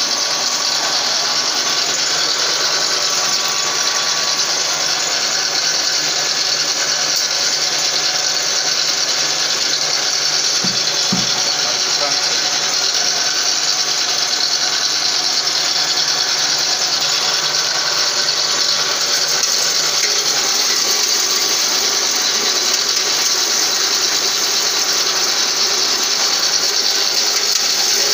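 Electric grain huller-mill running steadily while maize passes through it: a continuous, even mechanical noise.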